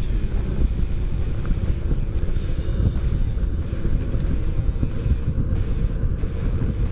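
Harley-Davidson touring motorcycle's V-twin engine running steadily while riding at road speed, mixed with wind noise on the helmet microphone.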